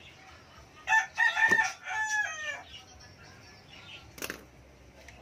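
A rooster crowing once, a call of about a second and a half that ends on a falling note. A short sharp click follows about four seconds in.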